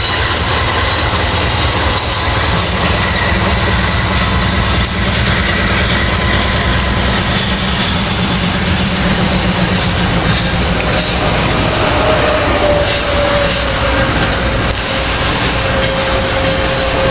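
Slow freight train of covered hopper cars and a tank car rolling past, wheels clicking over the rail joints. A thin steady squealing tone, typical of wheel flanges against the rail, joins in about two-thirds of the way through.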